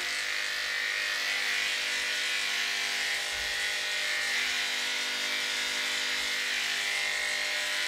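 Cordless electric dog clippers with a number 7 blade running with a steady buzz while clipping a poodle's coat.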